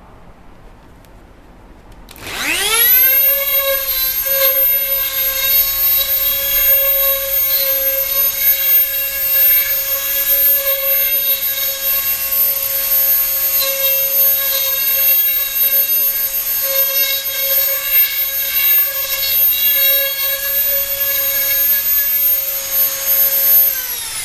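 Dremel rotary tool in a router base switching on with a quick rising whine, then running steadily at high speed while its bit routes a rosette channel into a wooden ukulele soundboard, with rough cutting noise rising and falling as the tool is moved around the circle. The whine starts to fall in pitch as it is switched off at the very end.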